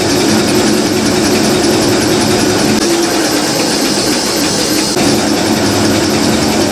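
Paper napkin folding machine running: a loud, steady mechanical noise with an even low hum.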